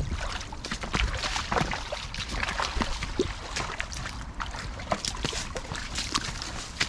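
Footsteps splashing and scuffing through a shallow brook, irregular sloshes and knocks over the stream's steady trickle.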